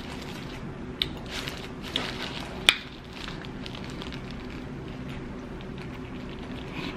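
Crunching and crackling of a bite into a crispy fried Popeyes spicy chicken sandwich: a few sharp crackles in the first three seconds, the loudest just under three seconds in, then only faint chewing over a steady low hum.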